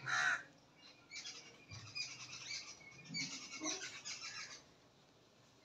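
Kitten eating scrambled egg close up: quick runs of wet chewing and lip-smacking. A brief high squeak at the very start is the loudest sound.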